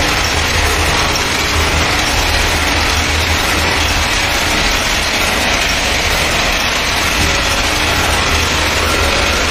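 Weaving loom machinery running: a loud, steady mechanical din with a low hum underneath.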